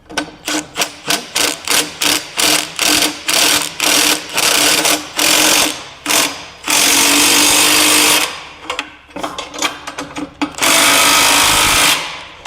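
Cordless impact wrench run in many short trigger bursts, about two a second, then in two longer runs of about a second and a half, spinning a nut onto a U-bolt whose thread is mangled; the nut still runs on.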